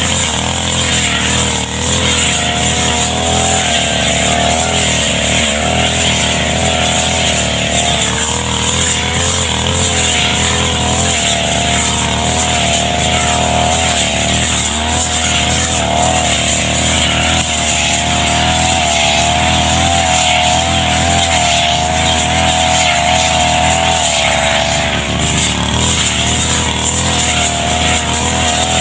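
Small two-stroke brush cutter engine running steadily at high speed, its pitch wavering slightly up and down.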